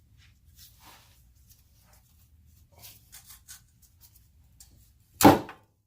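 Faint scraping and clicking of hand tools working on a rusted exhaust Y-pipe bolt, then one sudden loud knock about five seconds in, just as the bolt comes right off.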